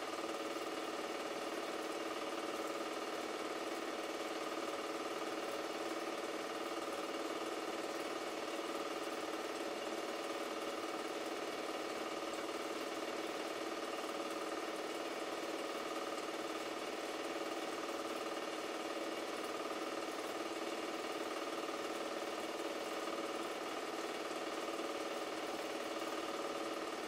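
Super 8 film projector running: a steady mechanical hum with several fixed tones over an even hiss, unchanging throughout.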